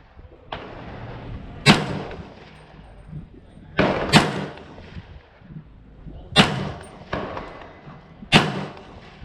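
Custom 16-inch .300 AAC Blackout AR-15 rifle firing four single shots, about two seconds apart, each followed by a short fading tail.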